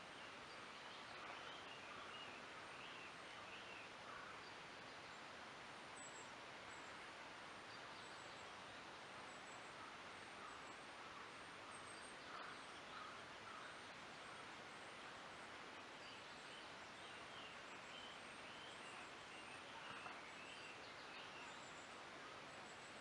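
Faint forest ambience: a steady soft hiss with small birds chirping here and there, high short calls scattered throughout.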